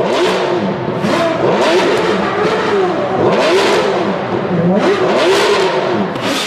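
Racing car engines revving at high speed, their pitch rising and falling again and again.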